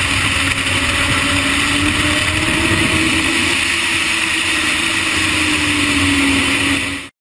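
Race motorcycle engine running hard at speed, heard from on board over loud wind rush, its pitch rising and falling slowly through the corners; the sound cuts off abruptly near the end.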